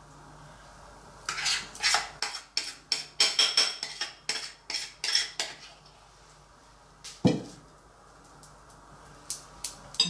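Metal spoon clinking and scraping against a glass bowl in quick repeated strokes while scooping out whipped cream, then one dull thud about seven seconds in as the bowl is set down on the counter.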